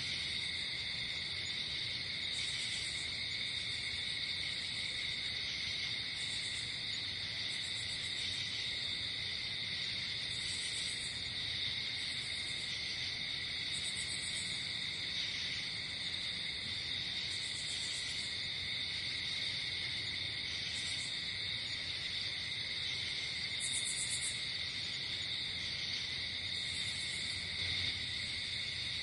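Night insect chorus of crickets: a steady, high-pitched trilling, with a higher pulsed chirp repeating every second or two.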